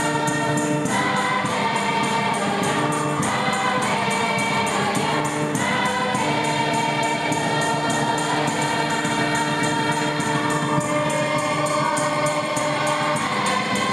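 A large church choir singing a gospel hymn together, many voices holding and changing notes in unison, over a steady percussive beat.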